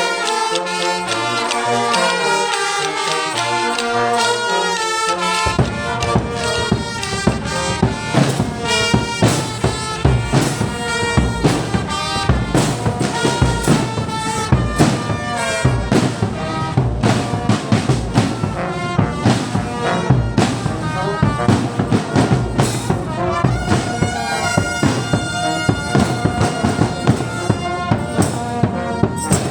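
School brass band with trumpets and trombones playing a tune. About five seconds in, drums join with a steady beat that carries on.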